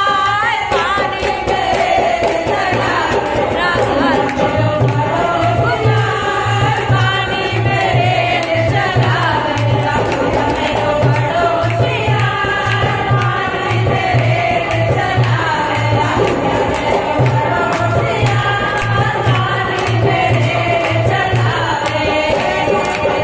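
A group of women singing a languriya devotional folk song together, with a steady low drum beat and hand-clapping keeping time.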